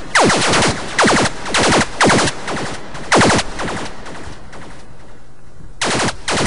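Sylenth1 software synth lead on its LD Screamer preset, its pitch swept down by the LFO, playing electronic 'laser' zaps: short stuttering bursts of rapidly falling tones, about two a second. The zaps pause for about a second and a half shortly before the end, then start again.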